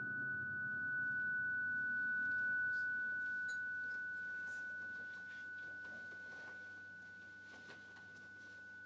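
Experimental electronic music: a high, steady pure tone with a second, slightly lower tone beside it that drops out about three and a half seconds in, after which the remaining tone slowly fades.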